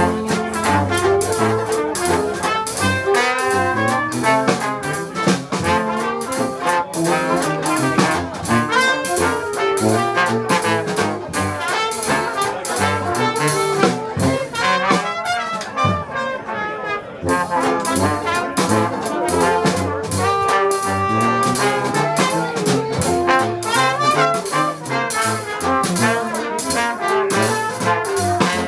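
Dixieland jazz band playing, with trombone and trumpet leading over a steady beat.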